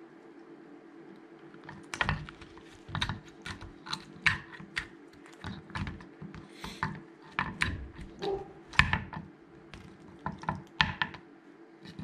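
Irregular clicks and knocks of a wooden food-puzzle toy's pieces and plastic cups as a Harris's hawk picks and tugs at them with its beak and talons, starting about two seconds in. A steady low hum runs underneath.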